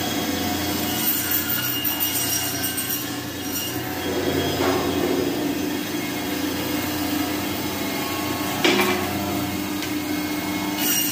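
Meat band saw running with a steady mechanical whine as mutton ribs and bone are fed through the blade. The sound roughens and grows louder briefly about four and a half seconds in and again near nine seconds.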